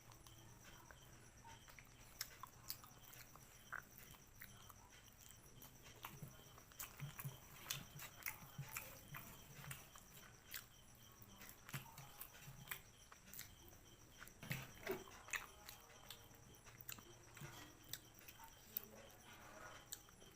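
Close-miked eating sounds: chewing and mouth smacks, heard as quiet, irregular clicks and crackles.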